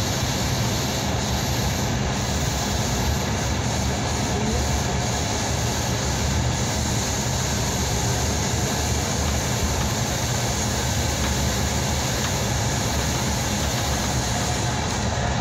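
Steady running noise of a passenger train in motion, heard from inside the carriage.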